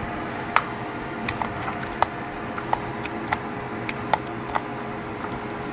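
Light, irregular clicks and taps of small tools and fittings being handled and tried in the holder slots of a jewelry ball engraving vise, over a steady low hum.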